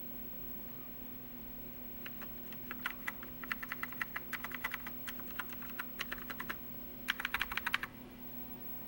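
Keys on a Commodore SX-64 keyboard being pressed one after another in a key-by-key test. Scattered clicks start about two seconds in, then pause, then a quick run of presses comes near the end. A steady low hum runs underneath.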